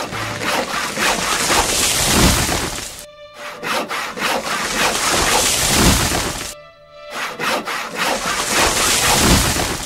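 Hand saw cutting through a tree trunk, rasping in three long spells of sawing that break off briefly about three seconds in and again near seven seconds. Music plays underneath.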